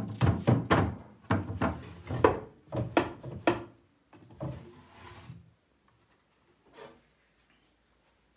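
A wooden pine drawer in a washstand being pushed in and pulled out several times. A quick run of wooden knocks and bumps comes in the first few seconds, then a softer sliding rub of wood on wood, then one more knock.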